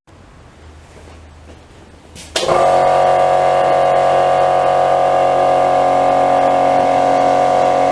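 Wood lathe running: a steady hum and whine that comes in suddenly about two and a half seconds in, after a quiet stretch, and holds steady.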